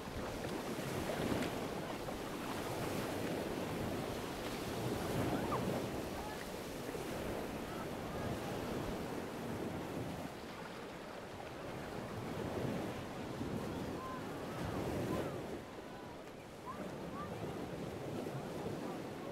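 Small waves washing and lapping in shallow lake water, swelling and easing every few seconds, with some wind noise on the microphone.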